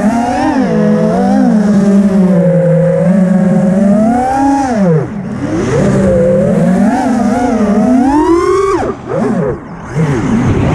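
FPV freestyle quadcopter's brushless motors and propellers whining, the pitch rising and falling with the throttle. The whine drops away sharply about five seconds in and again around nine seconds in as the throttle is chopped, then climbs back.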